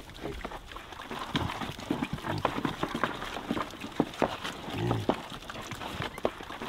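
Several piglets eating from a feed tray: quick, irregular crunching and chomping of the feed, with a few low grunts, the strongest about five seconds in.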